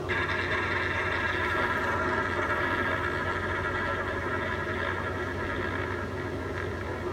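Roulette betting terminal playing its wheel-spin sound: the ball whirring round the rim of the spinning wheel. It starts suddenly and slowly fades as the spin runs down.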